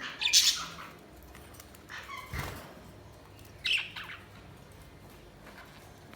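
Pet budgerigars chirping and squawking in a few short, high calls. The loudest comes right at the start, more follow around two seconds and near four seconds, and a faint one comes near the end.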